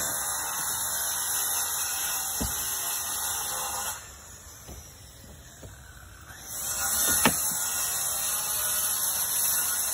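Pneumatic nail gun fastening roofing underlayment: two sharp shots, about 2.5 s in and again after 7 s. A steady high hiss runs under them and drops away for a couple of seconds in the middle.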